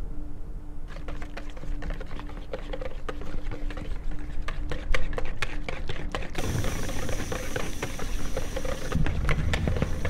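A whisk clicking rapidly against a glass bowl, beating eggs and sugar. About six seconds in, this gives way to an even sizzle of meatballs frying in a pan.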